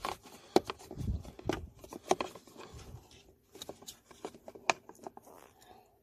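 Hard plastic glove compartment door and dash trim of a Subaru WRX being handled: a run of irregular sharp clicks and knocks with soft scraping between, as a tab is worked into its hole.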